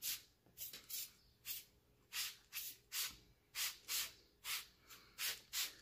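Plastic trigger spray bottle squirting water onto hair again and again: a run of short hissing sprays, about two a second.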